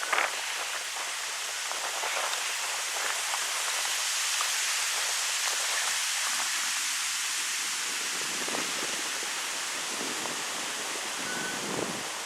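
Mountain wind blowing through birch trees, the leaves rustling in a steady hiss that swells and eases with the gusts.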